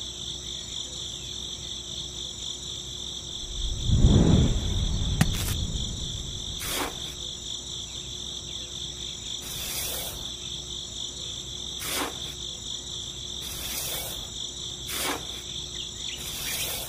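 A steady chorus of chirping crickets. About four seconds in there is a low thump with a short rumble, the loudest sound here, and several short knocks or taps follow at irregular intervals.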